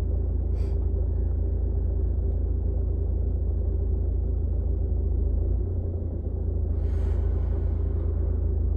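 Steady low rumble of a car idling while stationary in traffic, heard from inside the cabin, with a faint steady hum. A short click comes under a second in and a brief swishing noise about seven seconds in.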